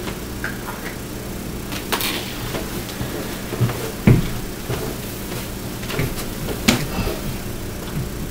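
Scattered light knocks and clacks from a tension curtain rod with rubber end tips and a curtain on it being handled and raised into place between two walls. The loudest knock comes about four seconds in, with fainter ones around two, six and seven seconds.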